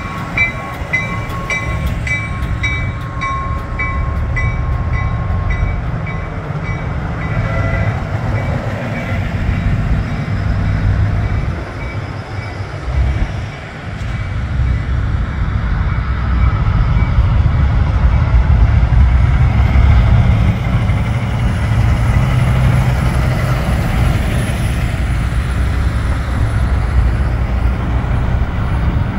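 Diesel engines of big-rig semi tractors rumbling as they drive past, growing louder in the second half as the next trucks come near. A rapidly pulsing high tone sounds over the first several seconds.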